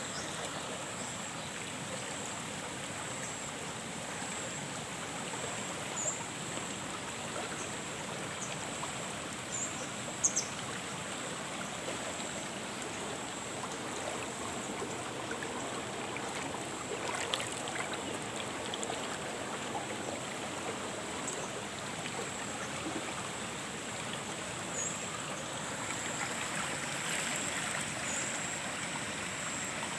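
Water rushing and churning along a narrow concrete-lined irrigation channel, a steady flowing noise. A brief knock about ten seconds in stands out above it.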